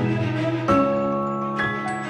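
Background music with sustained pitched notes. A new chord is struck just under a second in and another near the end.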